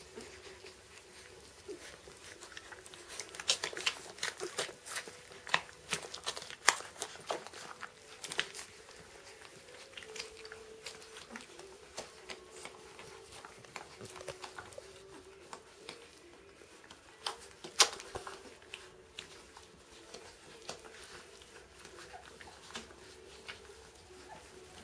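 Newborn Doberman puppies suckling at their mother, with quick wet smacking clicks that come in clusters, thickest in the first third and with one loud click past the middle.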